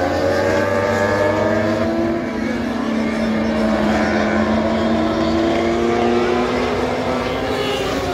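Dwarf race cars running laps on a dirt oval, several engines at once, their pitch slowly rising and falling as they accelerate and back off. A low hum underneath drops out about two seconds in.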